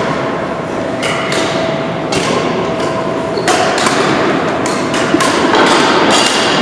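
Badminton rackets hitting the shuttlecock in a rally: a string of about ten sharp hits at an uneven pace, over the steady echoing hubbub of play on neighbouring courts in a gym.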